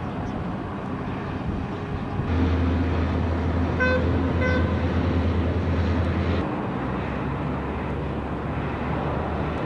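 A vehicle engine runs with a low hum for about four seconds, starting about two seconds in, and a vehicle horn toots twice, briefly and about half a second apart, near the middle. A steady low rumble lies underneath.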